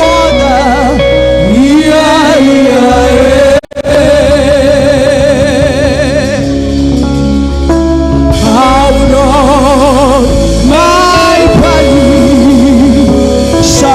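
Spontaneous worship music: a singer's voice with wide vibrato over held chords and a steady bass. The sound cuts out for a moment about three and a half seconds in.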